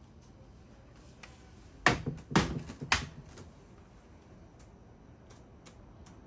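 A plastic lid knocked hard against a surface three times, about half a second apart, with a brief rattle after the second knock and a few faint light clicks around them.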